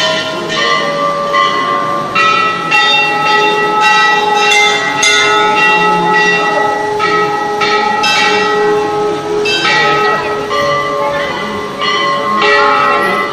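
Hindu temple bells struck again and again, about one to two strikes a second, with the tones of several bells overlapping and ringing on between strikes.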